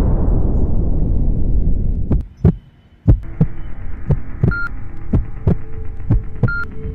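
Suspense soundtrack effect: a deep boom fades out over the first two seconds and drops away briefly. Then even low thumps start, about two a second, over a held tone, with a short high beep about every two seconds, like a countdown.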